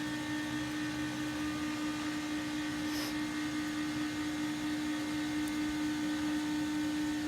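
A small motor running with a steady hum, holding one strong tone without change, over a faint hiss.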